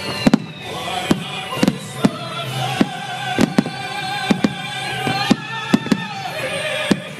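Aerial firework shells bursting in a rapid finale barrage, about two to three sharp bangs a second, with music playing underneath.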